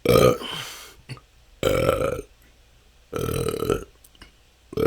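A person belching naturally and repeatedly: four pitched burps, each about half a second long and about a second and a half apart, the last beginning just before the end.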